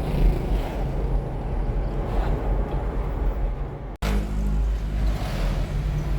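Steady low rumble of a motor vehicle running, with an abrupt cut about four seconds in before a similar rumble resumes.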